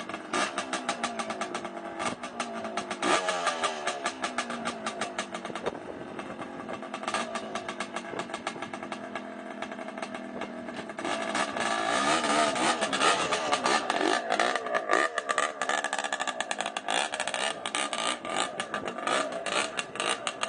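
Vintage motocross motorcycle engine freshly started, running with rapid crackling firing pulses and revved again and again with throttle blips, louder from about eleven seconds in.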